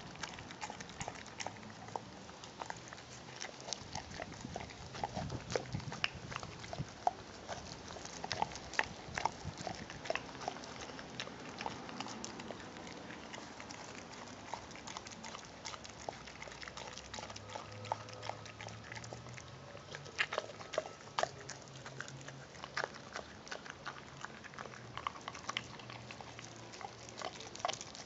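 American Pit Bull Terrier chewing and gnawing raw meat on the bone, with irregular sharp clicks and crunches of teeth on meat and bone.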